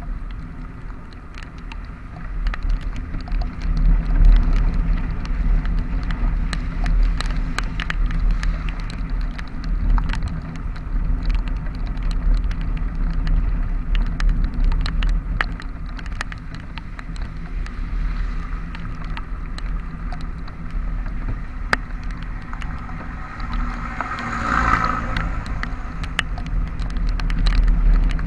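A motor vehicle underway in the rain: a steady low engine hum with road and wind noise and many scattered clicks, with a brief louder, higher sound about 24 seconds in.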